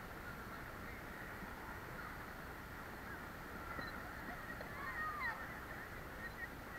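Steady rushing of river water with no clear events in it, and a few faint gliding high sounds about five seconds in.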